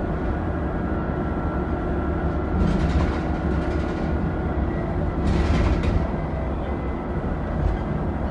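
Dennis Trident double-decker bus's diesel engine running under way, with a steady high turbo whine over a low engine drone. A brief hiss rises over it twice, about three seconds and five and a half seconds in.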